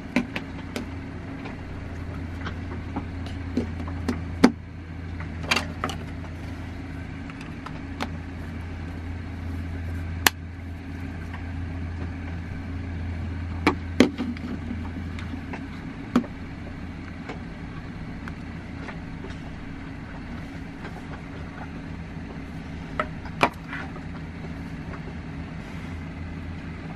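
Sharp plastic clicks and taps from a mobile Wi-Fi hotspot as its battery is fitted and its back cover snapped shut. A steady low hum runs underneath.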